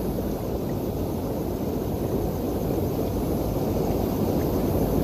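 Steady low roar of a flooded river rushing over rocks.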